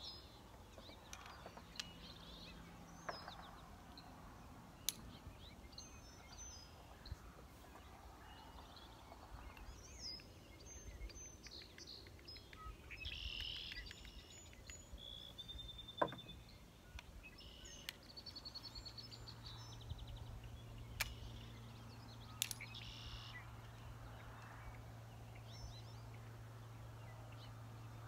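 Birds chirping over quiet rural ambience, broken by a few sharp clicks, the loudest about sixteen seconds in. A steady low hum starts a little past the halfway mark.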